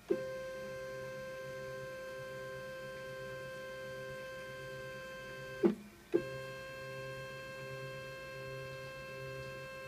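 Roland CAMM-3 PNC-3000 CNC mill's Z-axis stepper motor whining at a steady pitch as the spindle head is jogged. About five and a half seconds in it stops with a clunk and starts again half a second later, as the head reverses direction.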